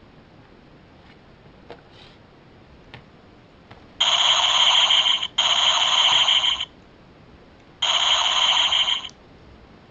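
Electronic sound effect from a 1980s action figure's built-in sound chip and small speaker: three harsh, steady buzzing blasts of about a second each, the first two back to back. A few faint clicks of handling come before them.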